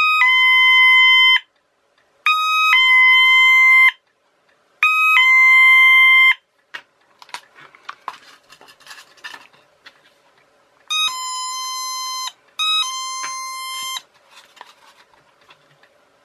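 Electronic doorbell kit's two-tone chime from a small speaker: a short high note dropping to a longer lower one, repeated about every two and a half seconds. The first three are loud, the speaker held inside a plastic cup; after a few seconds of handling rustle two quieter chimes follow.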